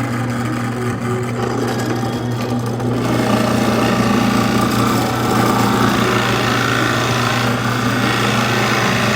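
Electric power tool running steadily, its sound growing fuller and louder about three seconds in, as when it bears into wood.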